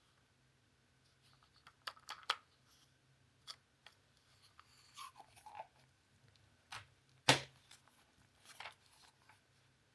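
Cleaning-tablet packaging being handled and opened: scattered crinkles, tearing and sharp clicks. The loudest click comes about seven seconds in.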